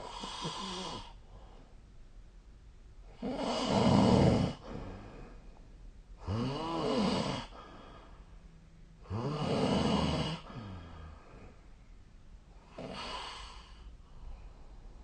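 A sleeping person snoring: five snores about three seconds apart, each lasting about a second, the second one the loudest and the last one faint.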